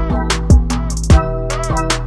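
Background music with a beat: booming bass-drum hits that drop in pitch, quick hi-hat ticks and sustained synth notes.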